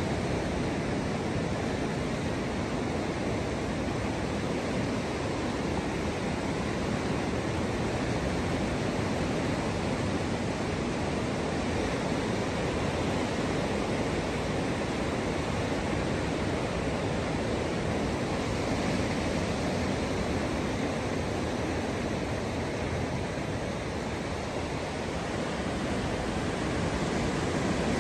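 Ocean surf breaking on a sandy beach, heard as a steady, even roar with no single wave standing out.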